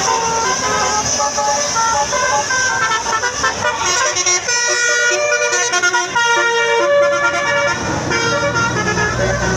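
Tour bus 'telolet basuri' multi-tone musical horn playing a tune of held notes that step from pitch to pitch. A low engine rumble comes in near the end.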